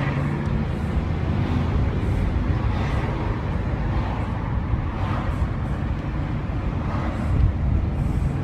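Road vehicle engine running with road and traffic noise: a steady low rumble.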